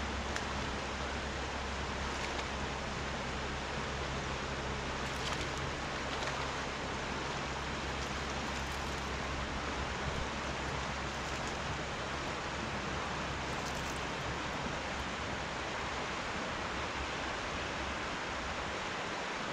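Steady rushing of river water over a riffle, with a low hum underneath that fades out near the end.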